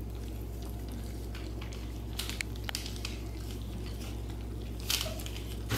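A litter of puppies eating their first solid food from a metal bowl: soft, wet chewing and squishing with scattered small clicks against the bowl, over a steady low hum.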